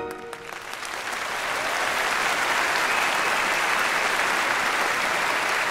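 Audience applause that swells over the first couple of seconds and then holds steady, as the last orchestral note fades away in the first half second.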